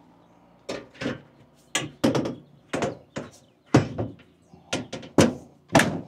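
Metal access panel of a Lennox air-conditioner condenser being fitted back onto the cabinet: a dozen or so sharp, irregular knocks and thunks of sheet metal against the housing.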